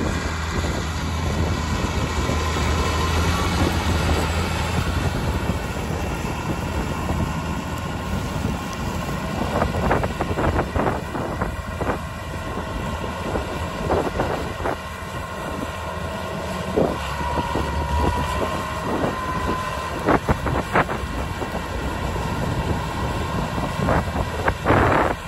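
John Deere tractor's diesel engine running steadily under load as it pulls a disc tillage implement through corn stalks, with a faint whine that wavers in pitch now and then. Wind buffets the microphone several times in the second half.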